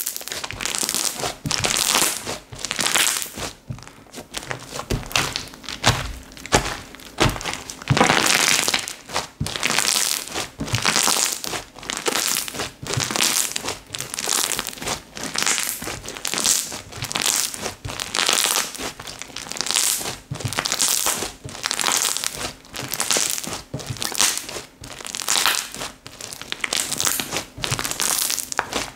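Slime being squeezed and pressed by hand, giving a run of crackly, crinkling squishes about once a second.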